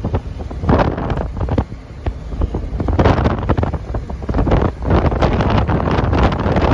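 Wind buffeting the microphone of a camera riding in a moving vehicle, in uneven gusts, with the vehicle's running noise underneath.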